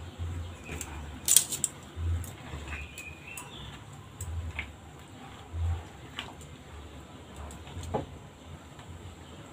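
Scattered sharp clinks and light knocks of cookware being handled at a gas stove, the sharpest about a second in, over recurring soft low thumps.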